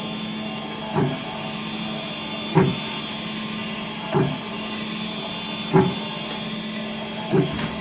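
Small CNC IC grinding machine running, its spindle whining steadily as it grinds down a chip, with a short knock about every second and a half.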